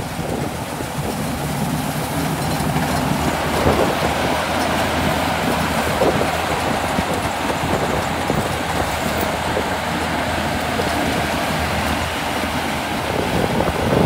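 Tracked rice combine harvester working in the field: its diesel engine running steadily together with the cutting and threshing machinery, at a constant level.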